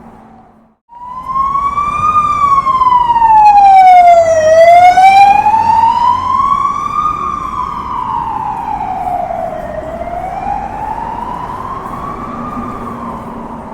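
Police car siren in wail mode, a slow rise and fall repeating about every five seconds, passing by: it comes in about a second in, is loudest around four to five seconds in, then slowly fades. A low street rumble runs underneath.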